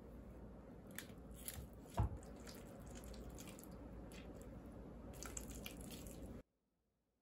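Ripe avocados being mashed with a potato masher in a ceramic bowl: faint wet squishing with scattered small clicks and one louder knock about two seconds in. The sound cuts off suddenly shortly before the end.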